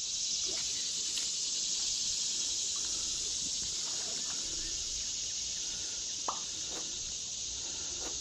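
A steady, high, dense chorus of insects buzzing, with a few faint ticks and one sharper click about six seconds in.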